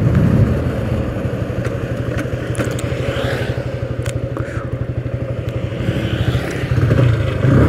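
TVS Apache RTR 160 2V's single-cylinder engine running at low revs as the motorcycle rolls to a stop, then idling with an even, rapid pulse. The revs pick up slightly near the end.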